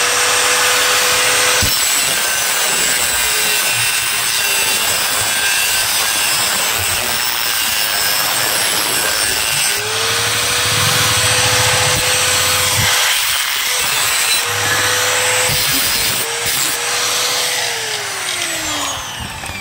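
Angle grinder with a thin cutting disc cutting into a clothes iron's metal soleplate to make room for a larger heating element: loud grinding over the motor's steady whine. The whine drops out briefly about two-thirds of the way through and winds down near the end.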